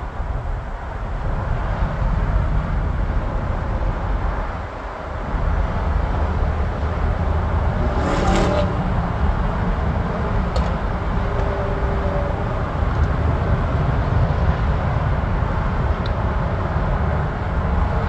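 Jet airliner's engines rumbling steadily as it climbs away after takeoff. A brief higher-pitched sound cuts in about eight seconds in.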